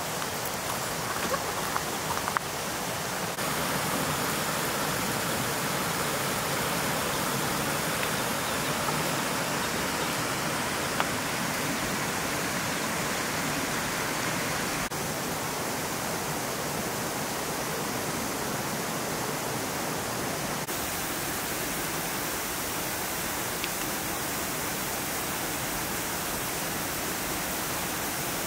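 Steady rushing noise of outdoor ambience, shifting slightly at edit cuts about 3 and 21 seconds in, with a few faint clicks.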